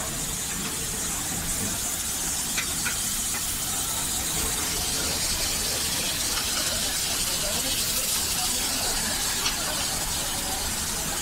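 Steam locomotive standing still and hissing steam steadily, with a few brief knocks.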